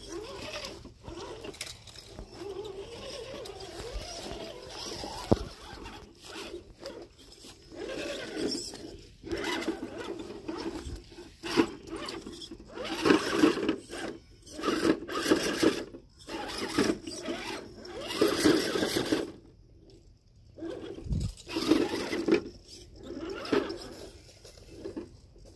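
Small electric motor of a radio-controlled rock-crawler truck whining in repeated bursts of about a second, as the truck is driven over rocks.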